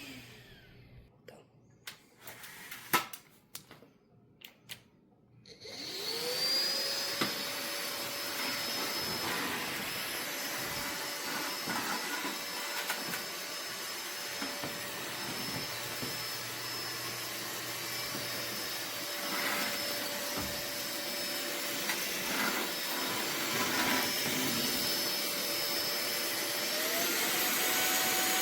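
SMOTURE cordless stick vacuum motor winding down and stopping, a few sharp clicks, then spinning back up about six seconds in to a steady whine, and stepping up to a higher pitch near the end.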